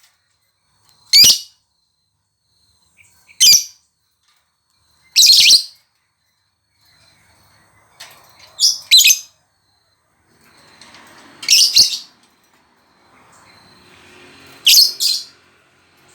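Lovebird giving loud, short, high-pitched chirping calls, one every two to three seconds, some in quick pairs.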